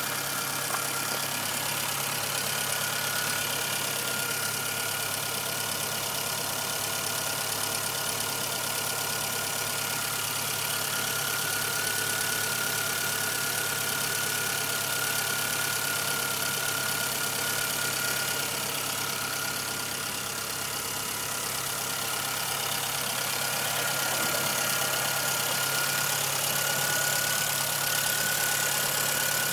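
1997 Suzuki Swift 1.3-litre four-cylinder engine idling steadily with a ticking noise, alongside a thin steady whine.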